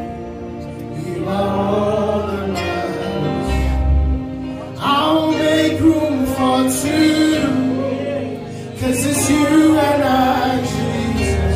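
Live gospel worship song: a singer on a microphone through the PA, with keyboard accompaniment, in sung phrases with short pauses.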